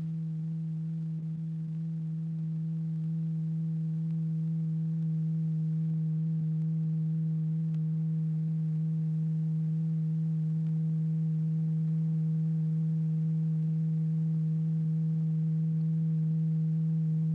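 Steady low pure tone with faint overtones: the audible sound vibrating the membrane that drives the lycopodium powder into its circulating flow pattern. It gets slightly louder over the first few seconds, then holds.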